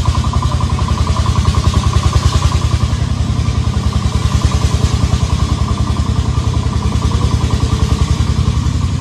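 A small engine running steadily at idle, an even rapid chugging pulse.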